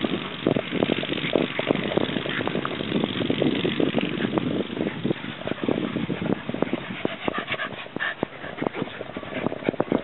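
Several dogs play-fighting and chasing each other on grass: busy, irregular scuffling and dog noises.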